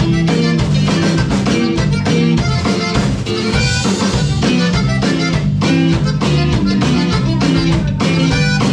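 A Latin band playing live, an instrumental groove with drums and a moving bass line, at full volume during a sound check.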